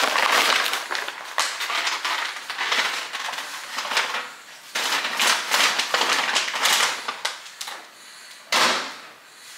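Paper takeout bags and food packaging rustling and crinkling as takeout food is unpacked, with a brief louder noise near the end.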